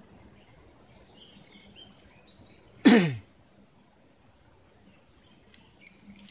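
A single short vocal sound from a person, like a cough or grunt, falling steeply in pitch about three seconds in, over faint riverside background.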